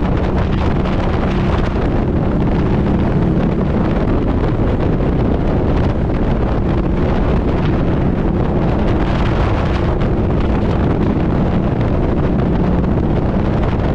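Harley-Davidson V-Rod's liquid-cooled V-twin engine running at a steady cruise, under heavy wind buffeting on the microphone.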